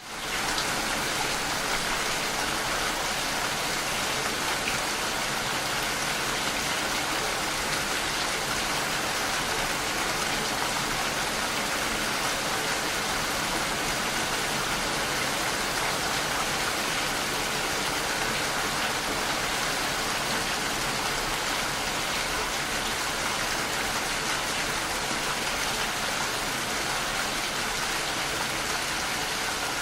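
Heavy, torrential rain falling steadily as a dense, even hiss of drops, fading in quickly at the start.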